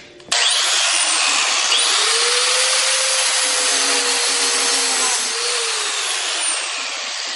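Angle grinder's abrasive disc grinding into an iPhone 6s's aluminium and glass body. It starts abruptly just after the start as a loud, harsh grinding hiss with a faint motor whine that wavers in pitch, easing a little near the end.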